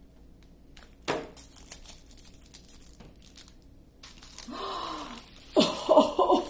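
Small plastic bags of diamond painting drills crinkling and rustling as they are handled and tossed onto a pile, with a sharp tap about a second in. Near the end a louder, wavering voice-like call begins.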